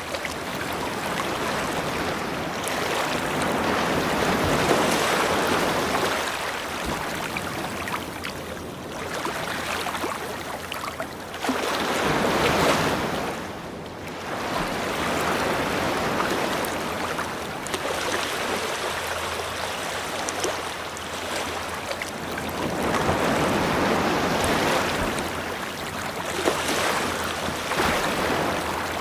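Ocean surf breaking and washing up a beach, the rushing noise swelling and falling back in long surges several seconds apart.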